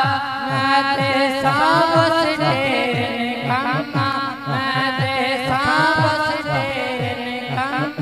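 A male reciter singing a Punjabi naat into a microphone, drawing out long, wavering melismatic notes with no clear words, over a low rhythmic backing pulse that repeats a couple of times a second.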